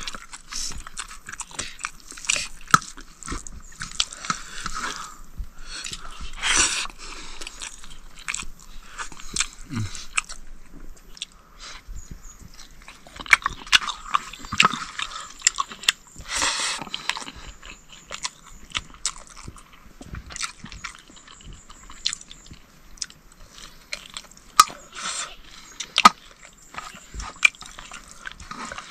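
Close-up eating sounds of a meal of rice and pork curry: chewing and biting, with many irregular small clicks and crackles.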